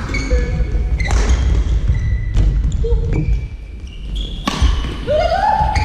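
Badminton doubles play on an indoor court: sharp racket hits and thudding footfalls, with short high squeaks of shoes on the court floor and a rising squeal near the end.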